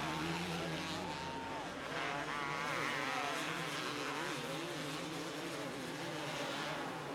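Motocross motorcycle engines racing, several bikes at once, their pitch rising and falling as the riders open and close the throttle.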